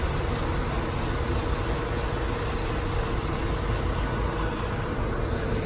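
A vehicle engine idling steadily, a constant low rumble with a steady droning hum on top.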